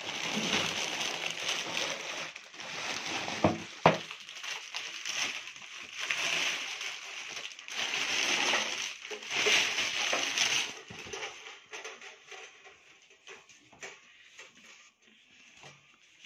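Clear plastic packaging rustling and crinkling in swells as a pillar heater is handled out of its box and unwrapped, with two sharp knocks just under four seconds in. The rustling dies down to faint handling noise for the last few seconds.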